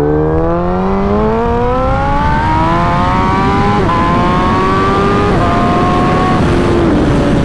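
Motorcycle engine accelerating, its pitch climbing steadily, then dropping in three quick steps about four, five and a half and six and a half seconds in as it shifts up through the gears, before settling to a steady, slowly falling note. A steady rushing noise runs underneath.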